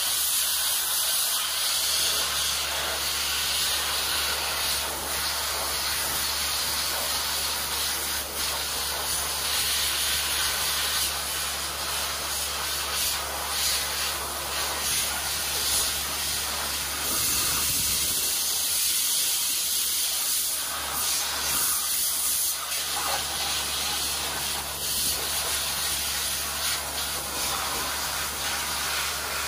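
Dry ice (CO2) blasting nozzle hissing steadily as a high-pressure stream of dry ice pellets strikes the truck's underbody and suspension, cleaning it for paint and undercoating. A steady low hum runs underneath the hiss.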